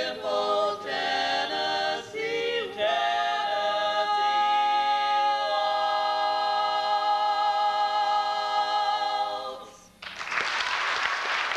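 Mixed barbershop quartet of two women's and two men's voices singing a cappella, closing on a long held chord that fades out about ten seconds in. Audience applause breaks out right after.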